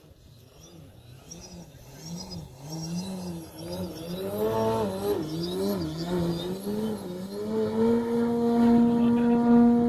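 Electric RC 3D helicopter whining, its motor and rotor tone wobbling up and down in pitch about twice a second, then holding one steady pitch from about eight seconds in while growing steadily louder.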